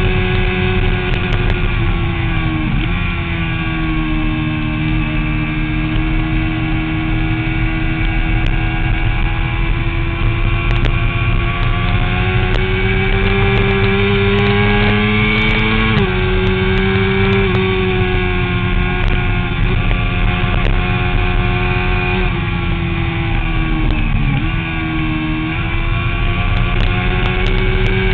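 Motorcycle engine running hard on a track lap, with heavy wind rush on an onboard camera. Its pitch climbs slowly and drops sharply three times, about three, sixteen and twenty-four seconds in, as at gear changes.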